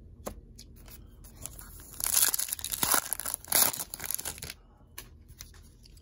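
A foil trading-card pack being torn open, its wrapper tearing and crinkling loudly from about two to four and a half seconds in, after a few light handling clicks.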